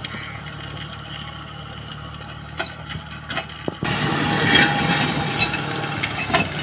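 John Deere tractor's diesel engine running steadily under load as it pulls a disc plough through dry soil, with a few sharp knocks. The sound gets louder and fuller about four seconds in, as the tractor is heard close by.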